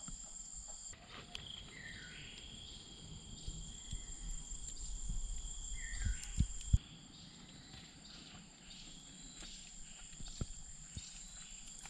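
Steady high chirring of insects in the surrounding forest, with two short falling chirps about 2 and 6 seconds in. Low rumbling swells in the middle and ends in a sharp knock about seven seconds in, followed by scattered small clicks.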